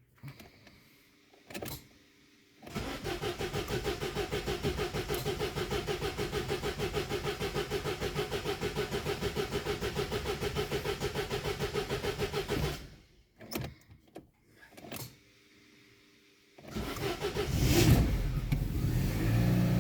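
Starter motor cranking the freshly rebuilt four-cylinder engine of a Daewoo Lanos 1.6 for about ten seconds in an even rapid beat without it catching, then a few clicks, then the engine fires and settles into running near the end. The long cranking is because it is starting straight on LPG.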